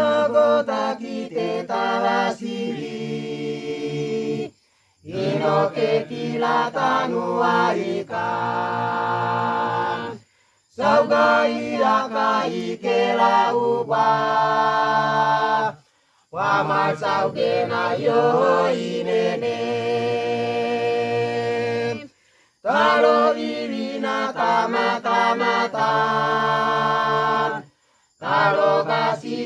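Mixed choir of men and women singing in the Misima language, in phrases of five to six seconds that each end on a held chord, followed by a short breath-pause before the next phrase.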